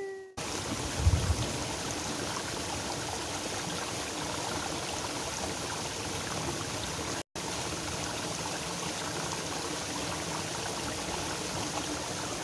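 Water flowing steadily in a small rice-field irrigation ditch, with a brief low thump about a second in. The sound cuts out for a moment just past the middle.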